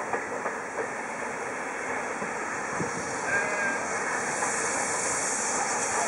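Steam locomotive approaching, with a hiss of steam that grows louder from about four seconds in.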